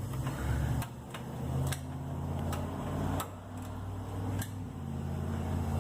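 Soft background music: sustained low chords that change every second or so, over a light clicking beat.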